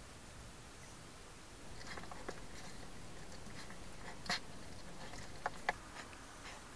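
A hedgehog eating dry food from a bowl: irregular crunching and clicking that starts about two seconds in, with a few sharper clicks near the end.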